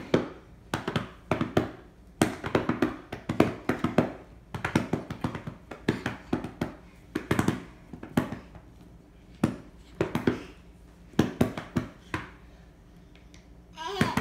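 Hands patting and slapping quickly on a carpeted floor, in short bursts of rapid taps, a new burst about every second.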